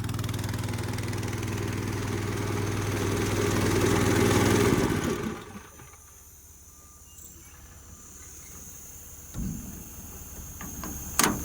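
An engine running steadily, then shutting off about five seconds in. A dull thump and a sharp click follow near the end.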